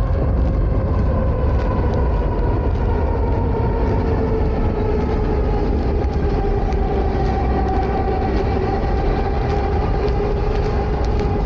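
Elevated train of the Market-Frankford El running on the steel viaduct overhead: a loud, steady rumble with a whine that slowly falls in pitch.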